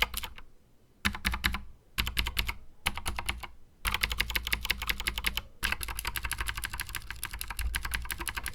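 Typing on an Anne Pro mechanical keyboard with clicky Gateron Blue switches and stock keycaps: fast runs of key clicks in several short bursts with brief pauses, then a longer unbroken run from about four seconds in.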